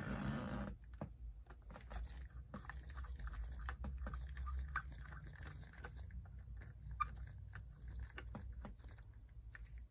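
Faint metallic clicks and light scraping of a hex key turning the pad-retaining bolt into a Shimano Dura-Ace hydraulic disc brake caliper, with a brief rustle at the start.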